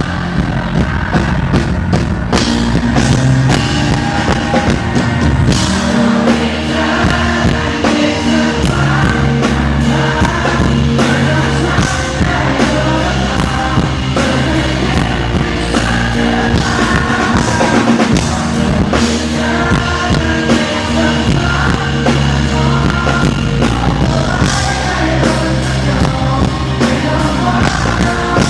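Pop-rock band playing live, with drum kit and singing. It is heard from right in front of a subwoofer cabinet, so the bass is heavy and comes through poorly.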